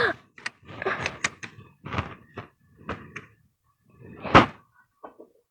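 Clicks and knocks of a Stanley No. 110 block plane's metal parts being handled and adjusted, with one louder knock a little after four seconds in.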